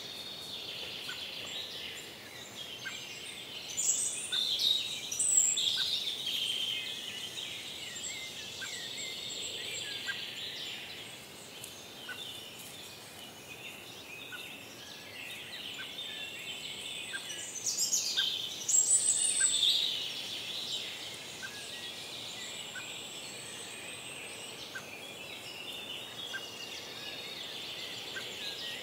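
Forest dawn chorus: several songbirds singing, with two louder bursts of song about 4 and 18 seconds in and a faint short call repeating about once a second, over a soft steady background hiss.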